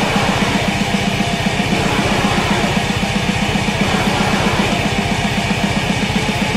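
Blackened death metal: heavily distorted guitars over fast, evenly repeating double-bass kick drumming.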